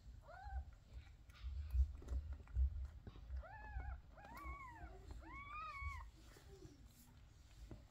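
Newborn kitten mewing: a faint cry about half a second in, then three louder, high-pitched cries, each rising and falling, between about three and a half and six seconds in. Low thuds about two seconds in.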